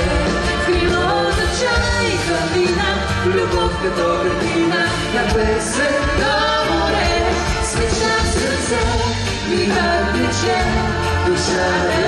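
Live Bulgarian pop song sung as a duet by a man and a woman, with a band of strings, keyboard and guitar accompanying.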